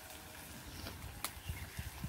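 Faint handling of a clay pot and spoon as whisked curd is tipped into a wok: a single sharp click a little over a second in, then a few low thumps near the end.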